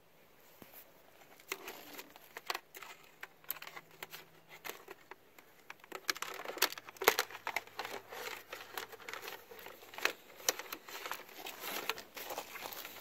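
Rustling, light scrapes and irregular clicks of electrical wire being fed by hand through an ATV's frame and against its plastic body panels, loudest about seven seconds in.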